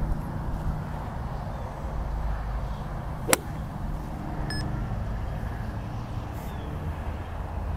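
A golf iron striking a ball once on a full swing: one sharp, short click about three seconds in, over a steady low outdoor rumble. A brief faint beep follows about a second later.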